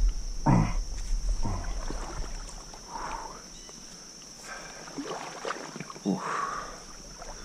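Shallow stream water splashing and sloshing in a few irregular bursts around a wading angler's legs, over a steady high hiss.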